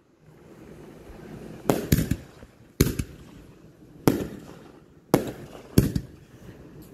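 Aerial fireworks bursting overhead: six sharp bangs about a second apart, one of them doubled, with a hiss between the bursts.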